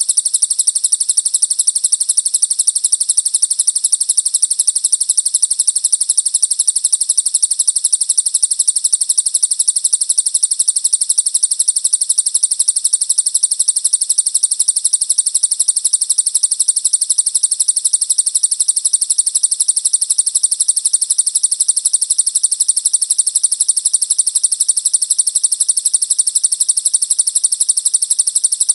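Recorded songbird song from a bird-mastering track: fast, high-pitched chirping repeated at an even rate, without a break.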